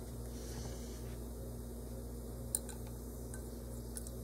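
Quiet room with a steady low hum, and a single light clink of a glass stirring rod against a glass beaker about two and a half seconds in.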